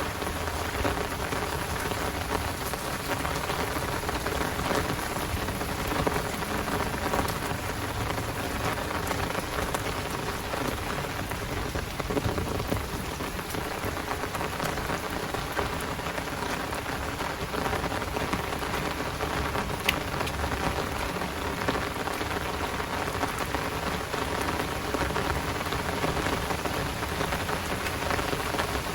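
Heavy rain falling steadily, a dense even hiss full of close drop hits.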